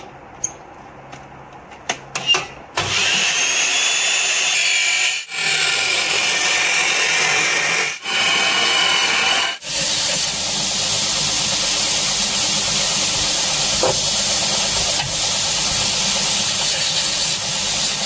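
A metal-cutting chop saw running and cutting through 12 mm square steel bar, with a few short breaks, starting about three seconds in. About ten seconds in it gives way to a belt grinder with a 40-grit belt running steadily as the cut ends of the bar are deburred against it.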